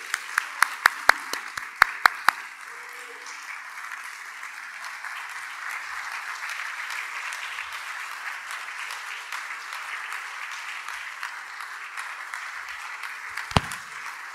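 Audience applauding steadily. In the first two seconds a single person's close, sharp claps stand out over it. Near the end there is a single knock.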